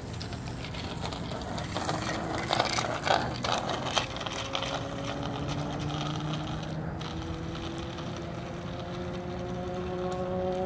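A few seconds of clicking and rattling, then a motor vehicle's engine running with its pitch slowly rising over several seconds.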